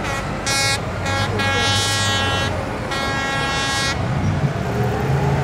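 A vehicle horn sounds four blasts, two short and then two longer ones, over a low steady engine hum.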